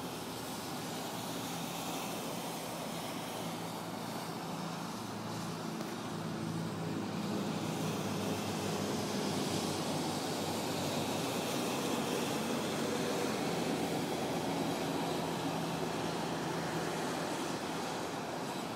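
Steady traffic noise from a highway, tyres and engines, swelling a little in the middle as vehicles pass.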